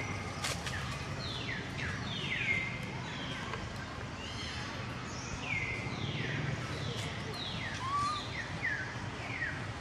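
A quick run of high, downward-sweeping animal calls, about two a second, over a steady low outdoor background.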